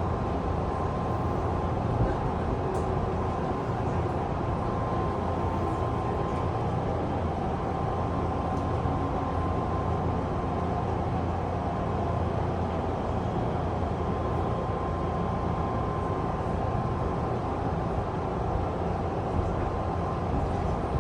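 Odakyu 2000 series commuter train running steadily as it comes in to arrive at the station, with a faint steady whine over the rumble.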